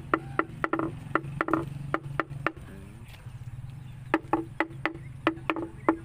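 Repeated sharp knocking at about three knocks a second, pausing briefly midway: tapping at a fish pond to call tilapia to the surface.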